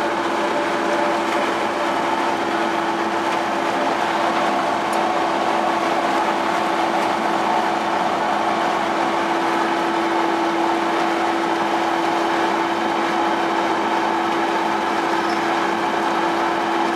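A fishing boat's machinery running with a steady drone and a constant hum, while the seine net is hauled up through the overhead net block.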